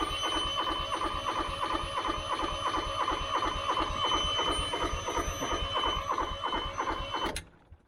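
Truck APU's small diesel engine cranking on its starter: a rapid rhythmic chugging with a steady high whine over it. It never catches, and the cranking cuts off about seven seconds in. The no-start comes from its glow plugs, which are snapped off inside the cylinder head.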